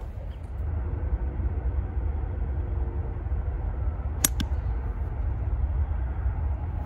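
A golf hybrid striking a ball from a buried lie about four seconds in: a sharp crack of impact with a second click just after it. A steady low rumble of wind on the microphone runs underneath.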